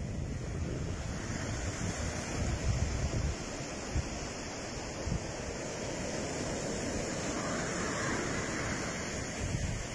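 Sea waves breaking and washing up a shingle beach, a steady surf hiss, with wind buffeting the microphone in low gusty rumbles.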